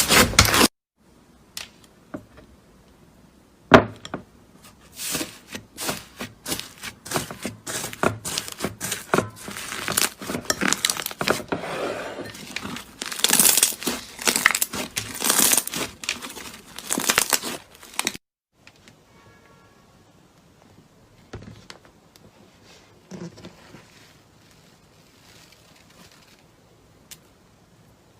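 Clear slime being squeezed and stretched by hand, giving dense sticky crackling with many sharp popping clicks. About two-thirds of the way through the handling goes much quieter, leaving only faint occasional clicks.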